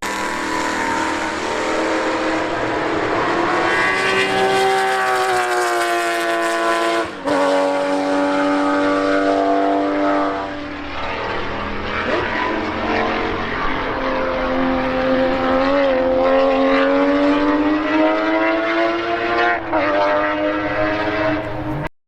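Racing car engine at full throttle on track, its pitch climbing and dropping sharply at upshifts, about seven seconds in and again near eleven seconds, then holding high and climbing slowly.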